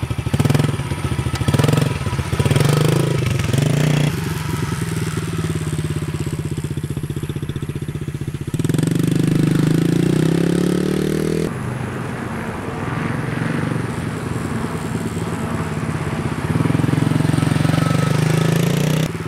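Small youth dirt bike's engine running at low revs, with a few short throttle blips in the first few seconds. It revs up and rises in pitch as the bike pulls away at about nine seconds, and rises again near the end as it rides close by.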